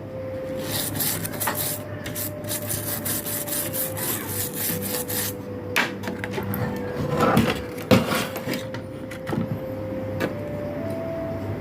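A tool scraping and rubbing against a circuit board while an IC is worked loose, in irregular strokes with sharp clicks, the busiest and loudest about two thirds of the way in. A faint steady tone runs underneath.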